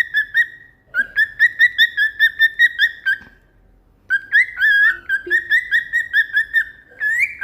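Cockatiel whistling its song: fast runs of warbling whistled notes, about five a second, in three phrases broken by short pauses about one second and three seconds in.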